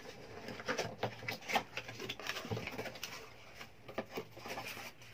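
Cardboard box being opened by hand: flaps pried up and pulled open, with irregular scraping, rubbing and sharp clicks of the card.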